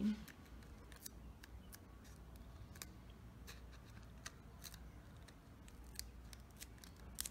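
A dozen or so faint, sharp clicks and crackles, irregularly spaced: stiff plastic bottle petals being handled and pressed together on a plastic flower.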